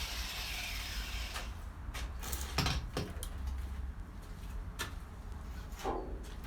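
Scattered light knocks, clicks and scrapes of tools and car body metal being handled, with two firmer knocks a little under a second apart about two and a half seconds in. A steady low hum runs underneath.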